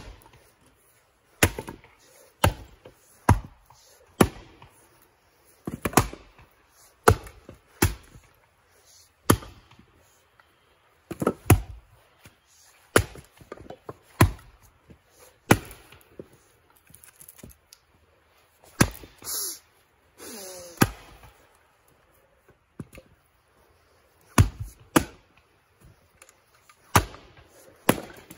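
Axes splitting firewood rounds: sharp chops of steel axe heads striking and cracking wood, irregular, about one a second from two people working at once, with a lull about two-thirds through.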